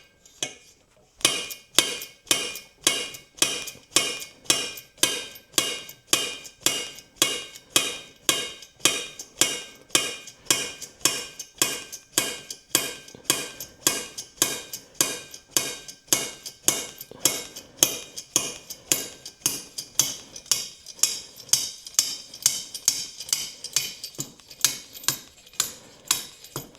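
Steady, evenly spaced metallic clicks, about two a second, each with a short ring. They come from the tool working the threaded extractor that is drawing the rocker shaft out of a Norton Atlas cylinder head.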